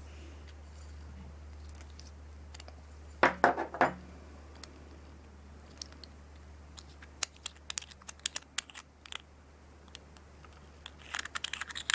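Case wrench and watch case back being worked to unscrew the back: a short cluster of scraping clicks about three seconds in, then scattered small sharp clicks and taps, and a quick run of clicks near the end, over a low steady hum.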